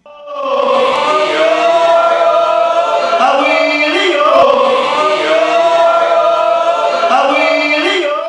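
Several voices singing together in a slow, chant-like choral harmony with gliding pitches. The singing cuts off suddenly at the end.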